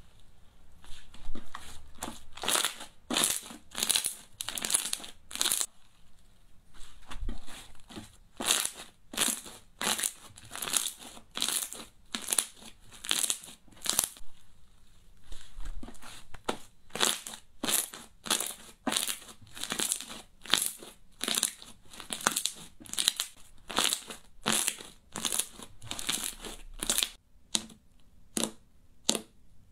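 Slime being squeezed, stretched and poked by hand, giving a run of short crackly, crinkly pops about two a second, with a couple of brief pauses.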